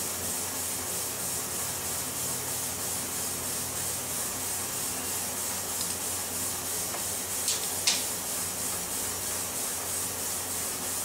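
Steady background hiss, with two light, sharp metallic ticks about three quarters of the way through as a small steel punch touches an AR-15 lower receiver while grease is dabbed onto its wear spots.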